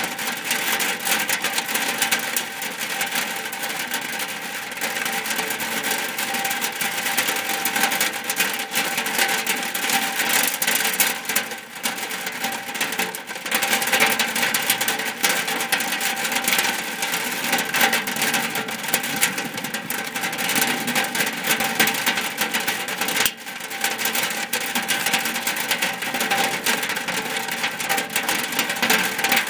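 Rain falling on a shack's roof: a steady, dense patter of many drops, with two brief lulls.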